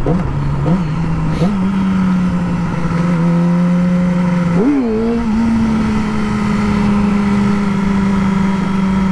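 Motorcycle engine under way, its pitch stepping up in three quick throttle blips in the first second and a half, revving sharply and dipping near five seconds in, then running steady at a higher pitch.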